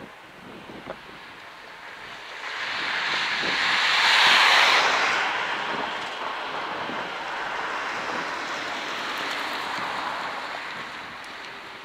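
A car passing close by on the road, its tyre and engine noise swelling to a peak about four seconds in and fading near the end.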